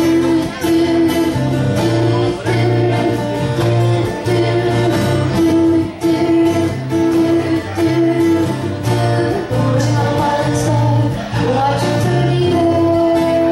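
Small live band playing a song: acoustic guitars strummed with an electric guitar, and a girl singing at the microphone.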